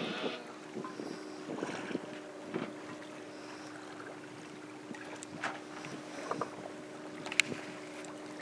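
Quiet sound aboard a sailboat under sail in very light wind: a faint steady hum of several even tones, with scattered small knocks and clicks.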